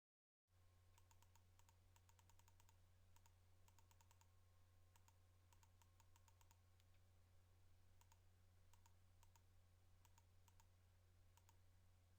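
Near silence: a steady low electrical hum with faint, irregular clicks scattered through it, sometimes several in quick succession.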